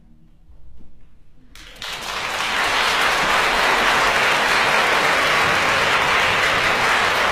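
The last notes of a concert harp die away, then an audience breaks into applause about a second and a half in, swelling within a second and holding steady.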